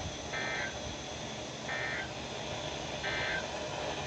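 Emergency Alert System end-of-message data bursts received on a NOAA Weather Radio: three short, buzzy digital tone bursts about a second apart, over steady radio static. They signal the end of the weekly test broadcast.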